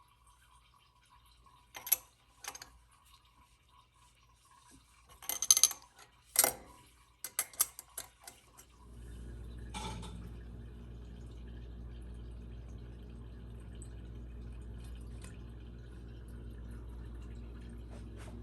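A few sharp metallic clinks and taps of tools and parts being handled, then about nine seconds in a steady machine hum starts and keeps running.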